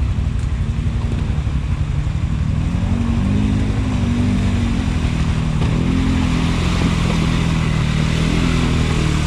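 ATV engine running under changing throttle, its pitch rising and falling from about three seconds in as it works through a mud hole, over a continuous hiss.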